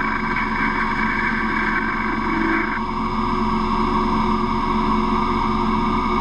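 Metal lathe running while a boring bar cuts the bore of a spinning aluminium workpiece: a steady mechanical whine made of several tones, with its highest tone dropping away about three seconds in.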